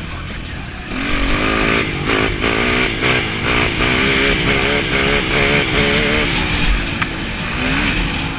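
A 2007 Honda TRX450R's single-cylinder four-stroke engine revving hard under riding load. About a second in it gets louder, and its pitch then rises and falls over and over as the throttle works, with wind buffeting the microphone.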